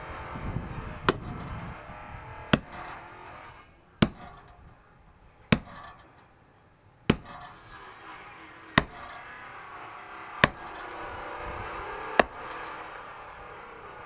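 Firewood being split by hand: eight sharp, evenly spaced tool strikes, about one every one and a half to two seconds, each with a short metallic ring.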